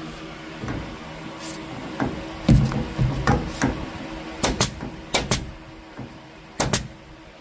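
Staple gun firing staples through the vinyl headliner into its backing: about ten sharp snaps, several in quick pairs, the loudest about two and a half seconds in.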